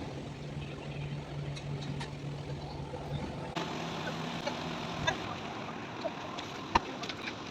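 Bitzer refrigeration compressor on R404A running with a steady low hum and a few faint clicks.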